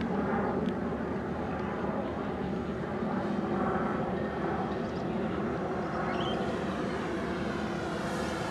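Four-engine electric model C-130 Hercules, its propellers and electric motors droning steadily, the tone of the drone shifting over the last couple of seconds.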